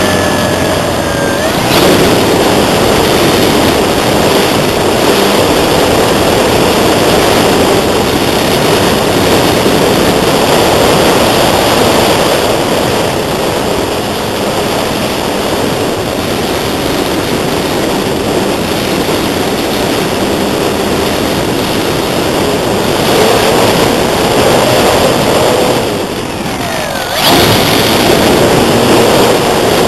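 Loud, steady wind buffeting the microphone, with the faint whine of the Multiplex Acromaster's electric motor rising and falling now and then as the model flies. The wind noise drops away for about a second near the end, then comes back suddenly.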